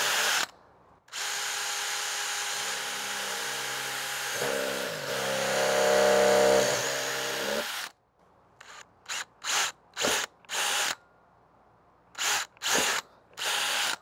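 Cordless drill drilling dowel holes: a steady whir for about seven seconds that grows louder and shifts pitch about halfway through, followed by several short trigger bursts.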